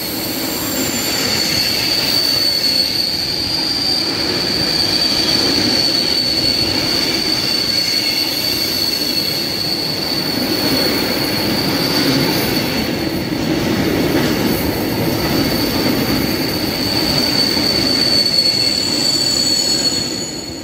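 Freight train of open-top wagons rolling past close by: the rumble of wheels on the rails with a steady high-pitched squeal over it.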